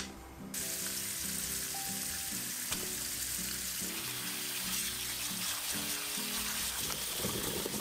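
A sharp click at the very start, then from about half a second in a kitchen tap pours a steady stream of water onto boiled buckwheat soba noodles in a plastic colander as they are rinsed, giving an even, continuous hiss of running water. Background music plays throughout.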